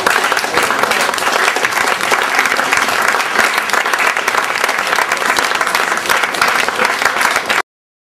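Audience applauding, a dense steady clatter of many hands that cuts off abruptly near the end.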